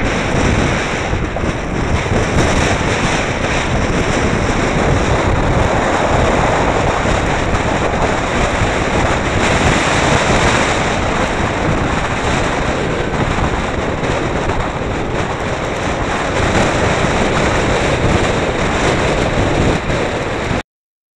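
Wind rushing over a bonnet-mounted camera's microphone as a car drives on a dirt track, with a low road and engine rumble underneath. The noise cuts off suddenly near the end.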